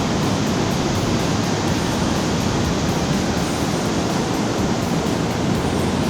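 Steady, loud rush of the Li Phi falls, the Mekong River pouring down its rapids.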